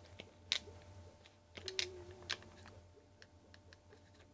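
Joystick switches clicking irregularly as a Commodore 64 game of Donkey Kong is played, with a faint held tone from the game for about a second midway.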